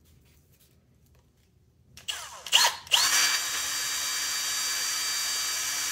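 Cordless drill boring a pilot hole with a 5/16-inch twist bit through a PVC end cap. About two seconds in, a couple of short trigger pulls spin the motor up and down, then it runs as a steady whine while drilling.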